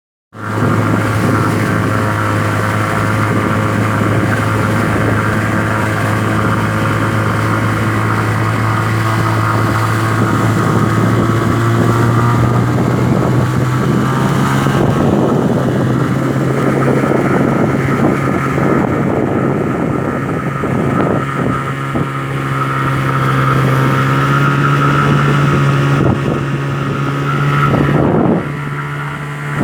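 Engine of a 13-foot fishing boat running under way at sea. It holds a steady note that climbs gradually as the engine speeds up around ten to fourteen seconds in. The engine eases off briefly near the end.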